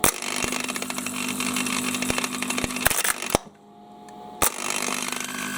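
Moskvich starter motor on the bench test, fed through a jumper with poor contact: it whirs in fits under a crackle of arcing, with sharp snaps as the contact makes and breaks. It cuts out for about a second a little past the middle, then picks up again after a snap. These are the scary sounds of the contact not holding.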